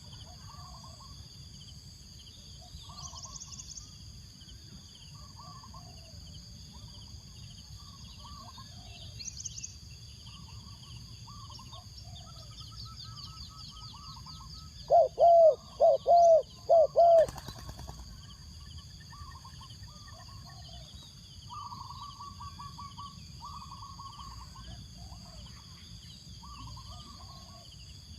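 Spotted dove cooing one loud phrase of four notes about halfway through. Softer calls of other birds come throughout, over a steady high insect drone.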